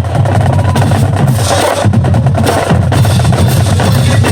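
Marching drumline playing loudly: dense, fast snare strokes and rolls over steady bass drums.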